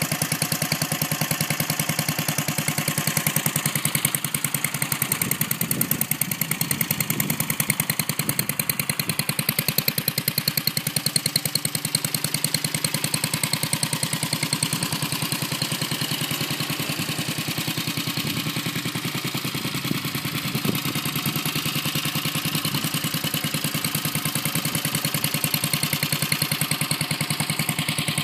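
Single-cylinder four-stroke Briggs & Stratton engine on a 1968 Taco 99 mini bike, idling steadily with a rapid, even firing beat.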